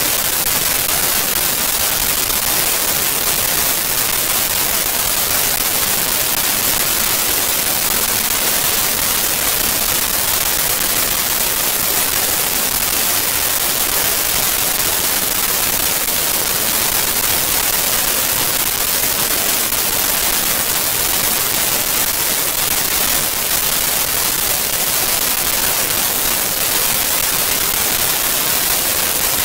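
Steady, loud hiss of static, like white noise, unbroken and unchanging, strongest in the high treble.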